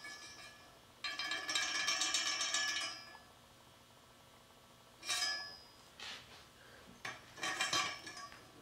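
Metal hardware clinking and rattling against a steel IV pole as it is handled and fitted at the top of the pole. A dense ringing rattle about a second in lasts about two seconds, followed by several shorter clinks later on.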